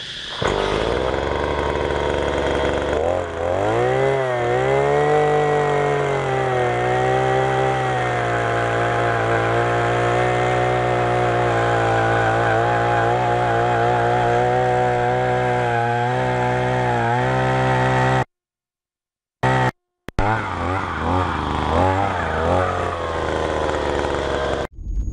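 Oshima 2P earth auger's 49.9 cc single-cylinder two-stroke engine idling, then revving up sharply about three seconds in and running at steady high revs, under load as the auger bores into the soil. Its revs dip now and then. It cuts out for a second or two about three-quarters of the way through, then returns with uneven revving.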